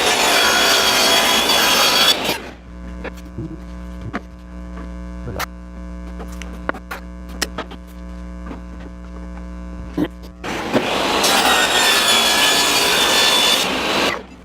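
Saw cutting plexiglass twice, each cut lasting about three seconds: a harsh, dense rasp over the saw's steady motor hum. The hum carries on between the cuts with a few light clicks.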